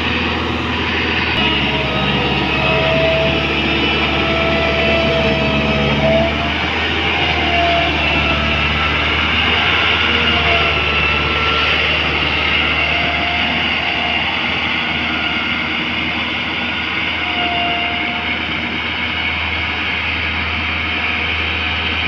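Hamm single-drum road roller's diesel engine running steadily as the roller drives over a dirt road, with a short wavering whine rising over the engine note now and then.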